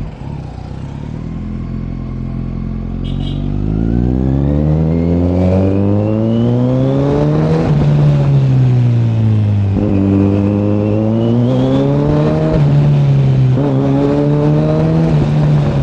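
Kawasaki Z900's inline-four engine accelerating through the gears while riding. The pitch climbs steadily for several seconds, drops sharply at an upshift about halfway through and again about two seconds later, then rises and eases off more gently.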